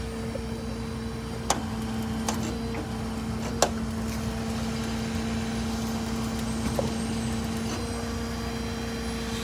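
A vehicle engine idling steadily, a low even hum, with a few short sharp ticks over it.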